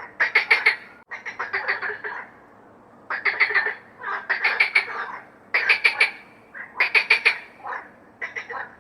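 Frogs croaking: repeated bouts of rapid pulsed croaks, each well under a second to about a second long, with short gaps between them.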